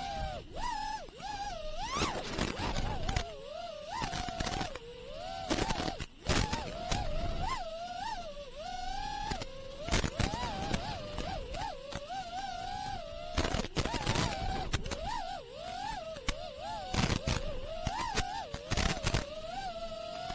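An FPV freestyle quadcopter's brushless motors (iFlight Xing2 2306 1750kv) spinning HQProp Ethix P3.5 three-blade props give a whine whose pitch rises and falls constantly as the throttle changes. Wind rumbles across the onboard camera's microphone.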